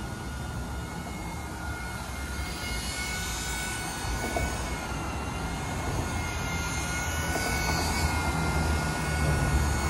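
Eachine E130 RC helicopter flying close by: a steady electric motor whine over the low hum of the rotor, slowly growing louder toward the end.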